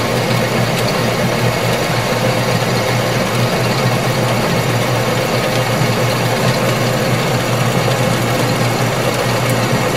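Craftsman Atlas 10-inch metal lathe running and taking a light power-fed turning cut on a steel bar: a steady hum of motor and gearing with a faint steady tone. The carriage feed comes from a windshield wiper motor driving the lead screw.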